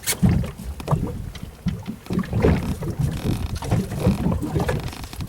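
Wind buffeting the microphone on an open fishing boat in irregular low gusts, with a few small knocks.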